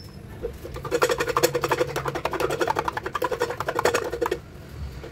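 Eggs being beaten with a metal spoon in a bowl: a fast, even clinking of the spoon against the bowl, about ten strokes a second, starting about half a second in and stopping a little before the end.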